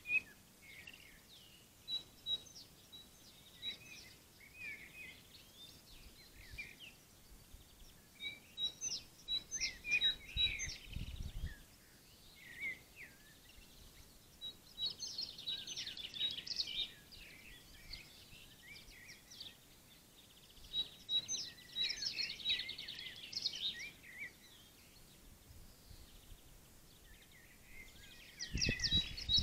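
A songbird singing short phrases of quick chirps and trills, a new phrase every five to seven seconds, over faint steady outdoor noise, with two brief low rumbles.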